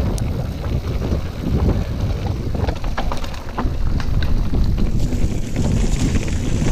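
Wind buffeting the camera microphone over the rumble of mountain-bike tyres on a rough dirt and rock trail, with scattered clicks and rattles from the bike as it bounces down the descent.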